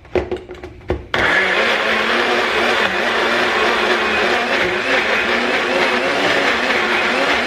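A few short knocks, then about a second in a blender switches on and runs steadily, blending a smoothie of fruit-and-greens blend, milk and protein powder.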